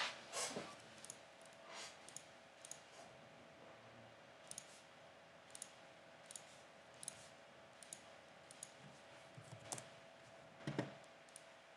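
Computer mouse buttons clicking at irregular intervals, about a dozen faint clicks, as shapes are picked and placed in CAD software. Under them runs a faint steady hum.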